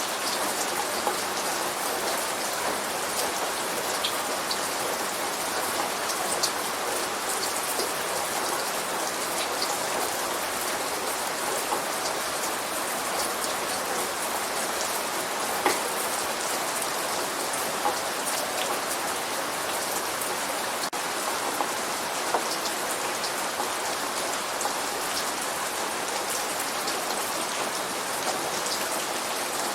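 Steady light rain falling, a constant hiss with scattered individual drops ticking on a surface; no thunder.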